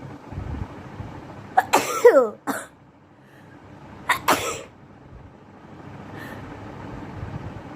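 A woman sneezing twice. The first is a loud sneeze with a sharp start and a falling voiced cry about one and a half seconds in. The second is shorter and comes about four seconds in.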